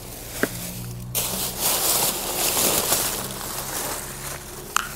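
Clear plastic trash bags rustling and crinkling as they are handled, with a couple of sharp clicks, over a steady low hum.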